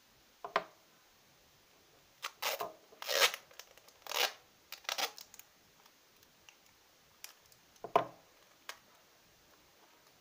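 Clear sticky tape pulled off its roll and torn, in a string of short ripping rasps, the loudest a few seconds in and another near the end.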